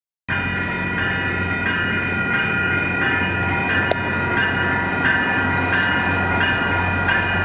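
Railroad crossing signal bell ringing steadily in a repeating pattern, over the low steady hum of an approaching passenger train.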